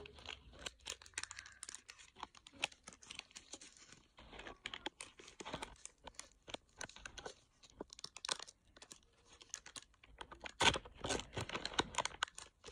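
Wrapper of an old Donruss baseball card pack being torn open and crinkled by hand: a steady run of small crackles and rips, louder for a couple of seconds near the end.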